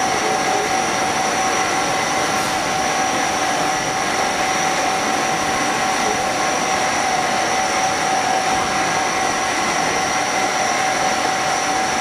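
CNC machine cutting a metal part under flood coolant: a steady spindle and cutter whine over the constant hiss and splatter of coolant spray.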